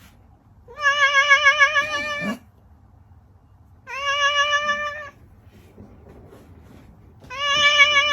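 A cat giving three long, wavering meows, each lasting a second or more with pauses between; the third is still going at the end.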